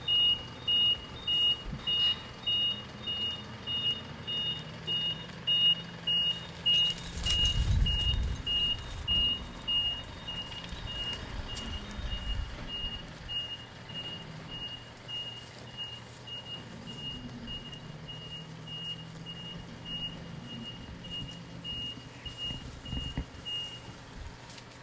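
A vehicle's reversing alarm beeping at an even pace, about two beeps a second, over the low hum of a running engine. A low rumble swells about eight seconds in, and the beeps grow fainter and stop near the end.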